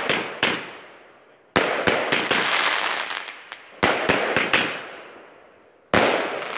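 Nico Metal Shots compound firework battery firing: four sharp bangs of shots bursting overhead, most about two seconds apart. Each is followed by a fading crackle of many small pops.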